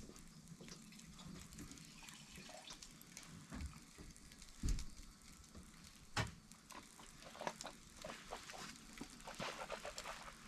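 Wood campfire crackling, with scattered sharp pops and clicks that come thicker in the second half, and a couple of louder knocks midway.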